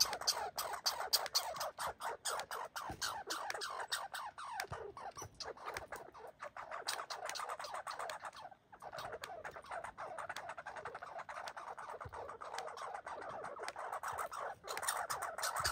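American red squirrel chattering: a rapid, continuous rattle of harsh notes that thins out around the middle, breaks off briefly, then returns stronger near the end.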